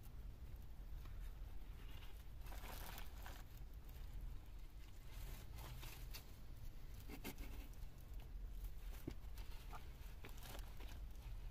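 Faint handling sounds of a stick-and-string door being fitted into a stone doorway: scattered rustling, crinkling and light knocks of wood, over a low steady rumble.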